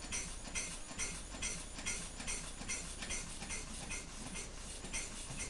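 Two-stroke weed eater engine converted to run on compressed air, turning slowly with a quick puff of hissing air and a click about four times a second in an uneven rhythm. The uploader puts the slow running down to a check valve that lets the air through, with the flywheel's momentum keeping it going.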